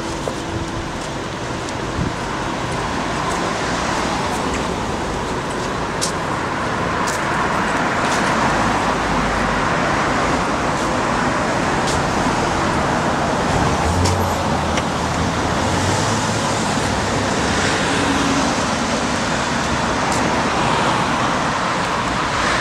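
City street traffic: a steady rush of cars passing on the road, swelling and fading as vehicles go by, with a few light clicks.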